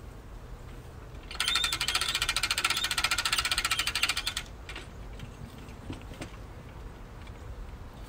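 Ratchet of a hive lift's hand winch clicking rapidly for about three seconds as it is cranked, starting about a second and a half in and stopping abruptly. A few faint knocks of the lift's metal frame follow.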